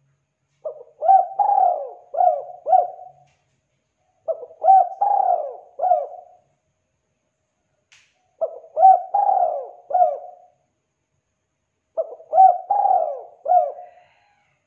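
Spotted dove cooing: four phrases of several coos each, about one phrase every four seconds.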